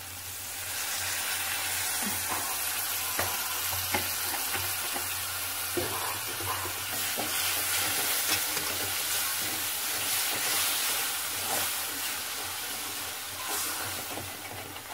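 Water poured into a hot pan of fried onion-tomato masala sizzles up about a second in and keeps sizzling while a spatula stirs and scrapes the pan bottom, with a few light knocks. The water is loosening the browned masala stuck to the bottom of the pan.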